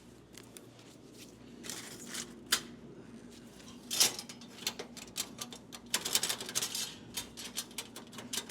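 A run of sharp clicks and light knocks, scattered at first and coming quickly one after another from about six seconds in.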